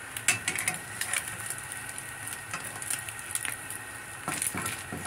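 Egg frying in a nonstick pan, a steady sizzle with scattered crackles, and the scrape and tap of a spatula working under the egg.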